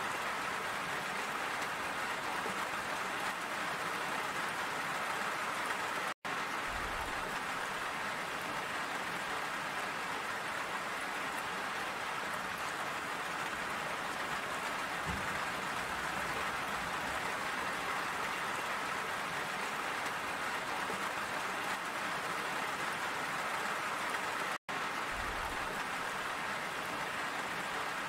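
Steady, even rain hiss, cutting out to silence for an instant twice.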